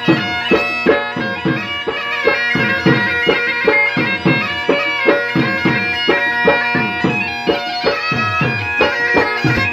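Bagpipe playing a melody over its steady drones, with a dhol drum keeping a fast, even beat of deep strokes that drop in pitch after each hit.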